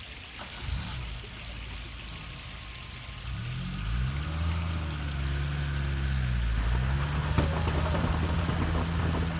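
Vehicle engine revving up under load about a third of the way in, holding its pitch, dipping briefly, then running steady, over a steady hiss of water.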